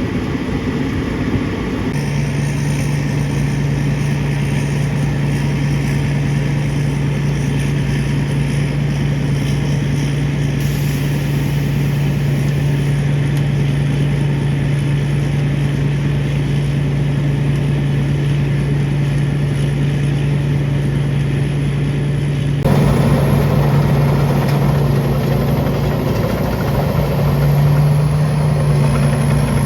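A machine engine running steadily with a strong low hum. The sound changes abruptly about two seconds in and again around two-thirds of the way through.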